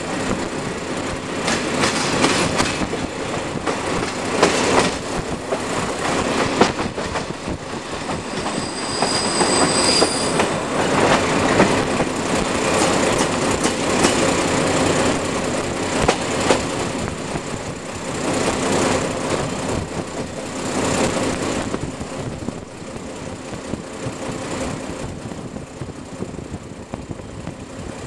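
Passenger train carriage running along jointed track, its wheels clattering steadily over the rail joints, with a brief high wheel squeal about ten seconds in.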